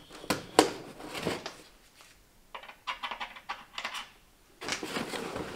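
Light clicks, taps and rustling from a boxed timing-chain kit being handled and unpacked, with a quick run of small clicks in the middle and a stretch of rustling near the end.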